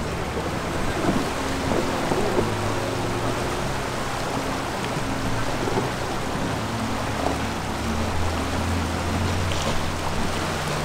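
Fast-flowing river water rushing steadily over a shallow gravel bed as an SUV wades through it, with faint low steady tones underneath.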